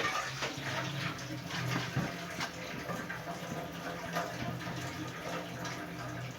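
Quiet kitchen handling sounds: scattered soft clicks and rustles over a steady low hum.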